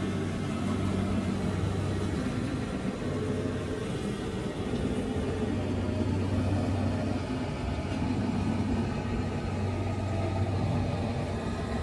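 Kubota DC60 combine harvester's diesel engine running steadily with a low hum, which eases off for a few seconds and then comes back.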